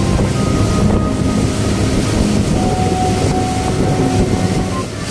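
Boat's Mercury engine running steadily at cruising speed, with wind buffeting the microphone and the wake's water rushing.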